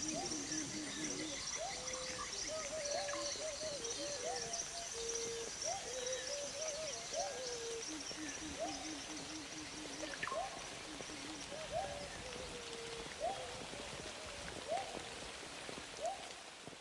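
Tropical forest background: a bird repeats short hooting notes, some rising and some held, with a fast wavering trill at times, over a steady high-pitched insect drone.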